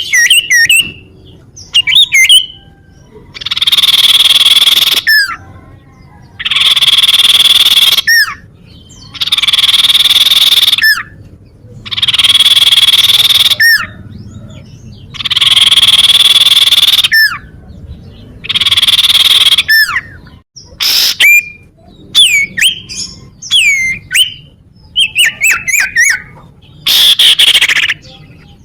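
Common iora (cipoh) calling: a string of long harsh rasping notes, each about a second and a half long and coming every few seconds, each ending in a short falling whistle. Quick sharp chirps come between the rasps, with a run of them near the end.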